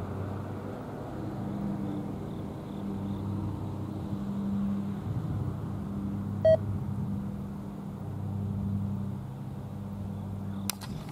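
Freight train of loaded coke hopper cars rolling away into the distance: a steady low rumble with a hum. A single short beep a little past halfway, and a few sharp clicks near the end.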